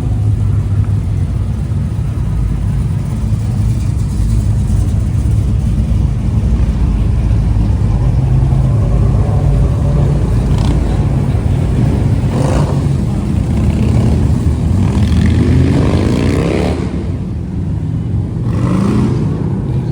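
Car engines running with a steady low rumble. About three-quarters of the way through, one car accelerates, its engine note rising, and a shorter rise follows near the end.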